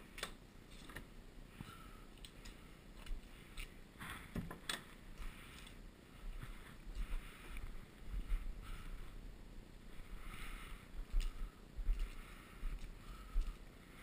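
Footsteps splashing on wet tarmac, an uneven patch of noise every second or so, with wind buffeting the microphone. There are sharp clicks and knocks near the start and again about four and a half seconds in.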